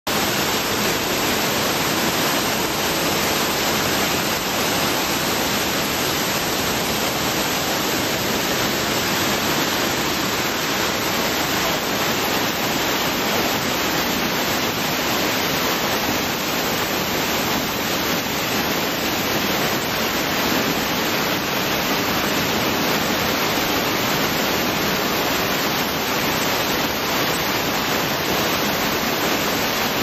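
Urami Falls: a waterfall's water falling and splashing onto rock, a steady, even rush.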